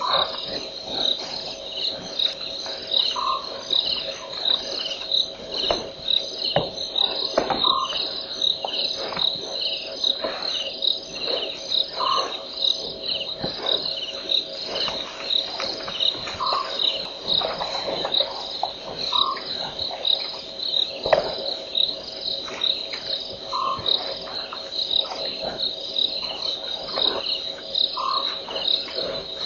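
Night insect chorus, crickets chirping in a steady, evenly repeating pulse. A short, lower call, possibly a frog, repeats every few seconds.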